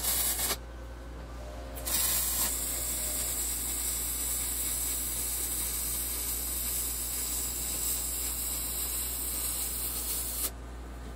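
MIG welding arc on steel plate: a short burst at the very start, then after about a second's pause a steady, hiss-like weld run lasting about eight seconds that stops shortly before the end, over a constant low hum.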